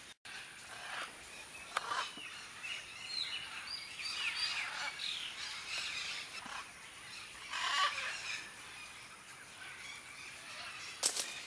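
A flock of parrots calling: many overlapping harsh squawks and short curved screeches, with a louder burst of squawks about eight seconds in. A few sharp knocks come near the end.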